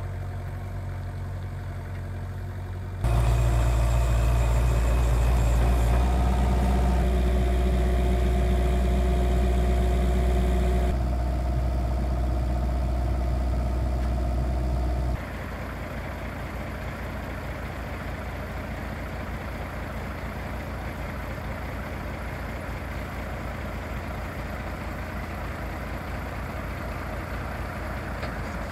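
Diesel engines of a Kubota KX027-4 mini excavator and the truck it is loaded onto, running steadily. About three seconds in the sound jumps much louder, with a steady whine on top, and drops back to a steady idle about fifteen seconds in.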